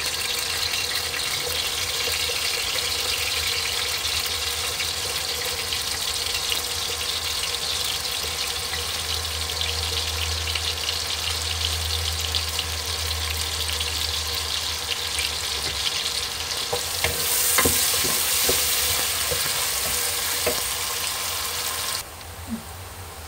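Chopped onions sizzling steadily in hot olive oil in an aluminium pot, frying until they turn brown. There are a few knocks near the end, and the sizzle drops suddenly quieter just before the end.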